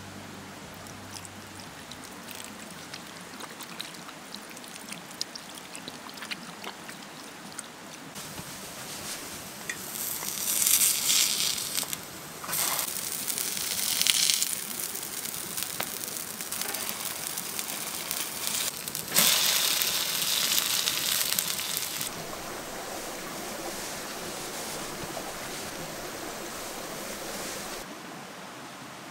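Water trickling from a camp water bag's tap onto hands, then cheese pancakes sizzling in oil in a frying pan. The sizzle starts loud and suddenly each time a pancake is turned, twice in the middle, and settles to a steadier frying hiss near the end.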